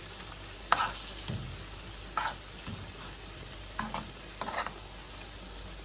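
Chicken kababs cooking in fresh cream in a pan on a low flame with a soft, steady sizzle, while a spoon or spatula knocks lightly against the pan about six times as they are stirred and turned.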